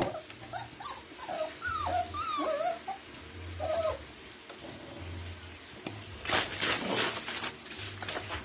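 Puppies whimpering in a string of short, high whines that bend up and down, then a scratchy rattle about six seconds in as the puppies paw at the wire pen.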